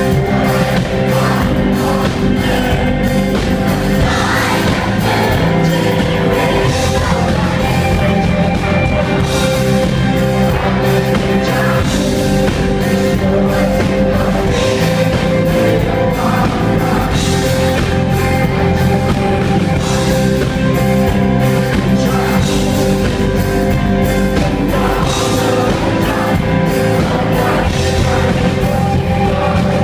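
Rock band playing live through a PA: drum kit keeping a steady beat under sustained guitar chords, with singing.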